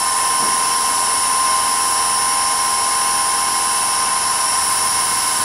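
Wood lathe running at speed, a steady high-pitched motor whine with a spinning workpiece.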